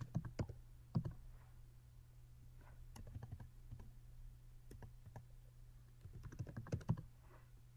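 Computer keyboard keystrokes as a web address is typed, in short runs of clicks with pauses between them, over a low steady hum.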